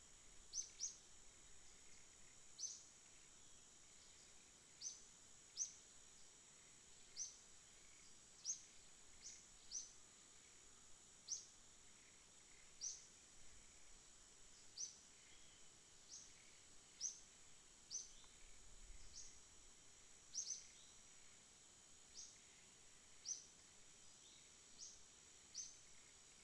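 Faint outdoor ambience: a steady high-pitched insect drone, with short, sharp, high chirps repeating irregularly about once a second.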